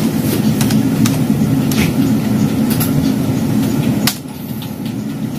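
Steady low mechanical rumble of running machinery, which drops off sharply about four seconds in. Over it come a few sharp keyboard key clicks as an IP address is typed.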